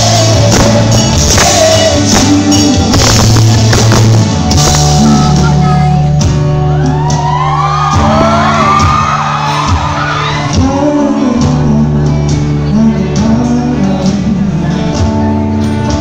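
Live folk-pop band playing, with strummed acoustic guitars, bass and singing. Around the middle, high shouts and whoops from the audience rise over the music.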